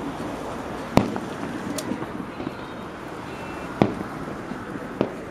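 Fireworks bursting overhead: separate sharp bangs about a second in, just before four seconds and around five seconds, with a fainter crack in between, each trailing a short echo over steady background noise.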